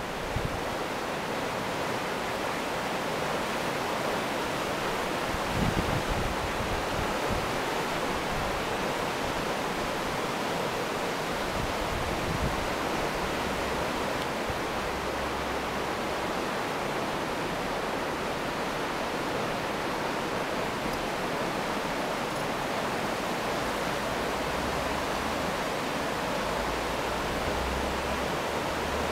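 A river in spate, brown with floodwater, rushing fast and turbulent through a stone-walled channel: a steady, unbroken sound of churning whitewater.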